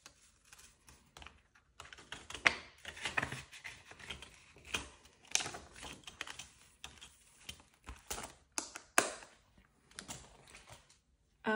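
Handling of paper banknotes and a small ring-binder planner: crisp rustling of bills and plastic envelopes with irregular sharp clicks and taps, the loudest about two and a half seconds in.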